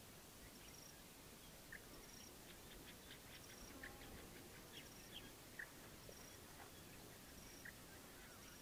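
Faint natural ambience: scattered short, high chirps and a soft, high buzz that recurs every second or two.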